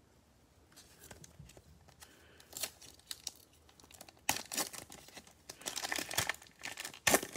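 Black foil-style wrapper of a Panini Mosaic football bonus pack crinkling in gloved hands and being torn open. The crackling starts about a second in, grows louder and denser from about four seconds in, and peaks in one sharp crackle near the end.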